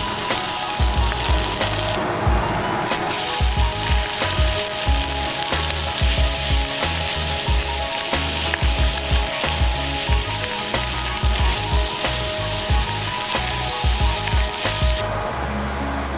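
Butter and food sizzling in a hot cast-iron skillet, first steak and then asparagus, over background music. The sizzle drops out briefly about two seconds in and stops about a second before the end, leaving the music.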